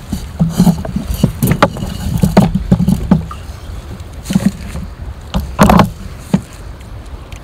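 Irregular hollow knocks and clatter of wire-hooped crab drop nets being handled against a kayak, thinning out after about six seconds, over a steady low wind rumble.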